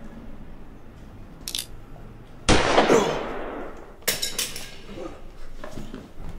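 A sudden loud crash about two and a half seconds in, ringing out for about a second, then a quick run of sharp metallic clinks a second and a half later.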